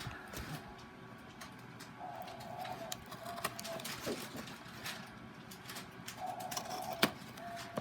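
Small clicks and crinkles of a packet being handled and opened by hand, with several short, steady hooting notes repeating in the background.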